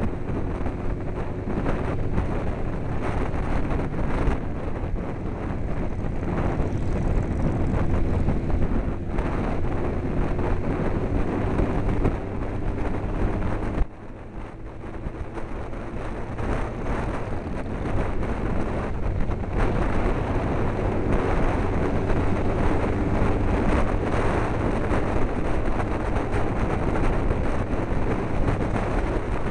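Wind rushing over a helmet-mounted camera microphone at road speed, with a motorcycle engine note rising and falling faintly underneath. About halfway through the level drops suddenly, then builds back up over several seconds.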